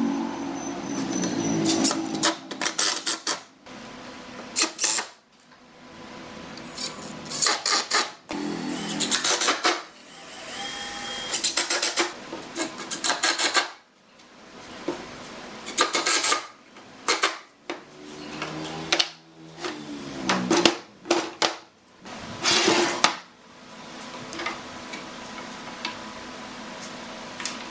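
Makita cordless drill and impact driver running in short bursts of a second or two as a pine frame is bored and fastened. Knocks and clatter of tools and wood parts being handled come between the bursts, and around two thirds of the way in a motor's pitch falls as it winds down.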